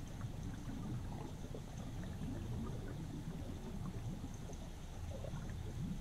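River current heard underwater among stones: a steady low churning rumble with faint bubbling and gurgling.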